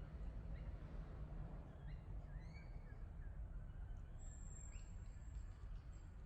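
Faint outdoor ambience: small birds chirping in short rising and falling notes over a steady low rumble. About four seconds in, a thin high whistle is held for more than a second.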